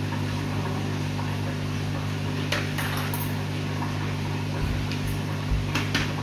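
A steady low mechanical hum, with a few short clicks and rustles about two and a half seconds in and again near the end.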